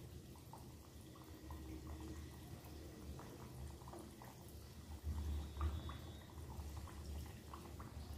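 Mathri dough pieces deep-frying in oil in a steel kadhai: faint bubbling and small scattered pops from the oil over a low steady rumble.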